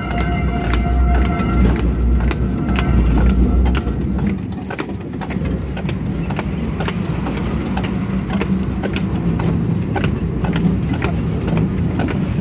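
A draught horse's hooves clip-clopping at a steady walk on the road as it pulls a horse tram along its rails, over the running of the tram's wheels. A deep rumble and a faint thin whine fade out in the first four seconds.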